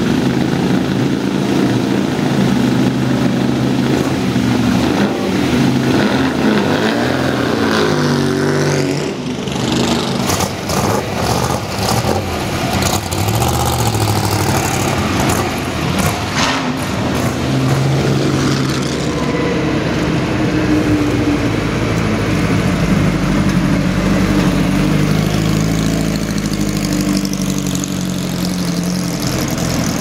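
Bizzarini 5300 GT's Chevrolet V8 racing engine running at idle, then revved up and down about eight seconds in. A run of sharp cracks follows over the next several seconds as it pulls away, and steady engine running goes on to the end.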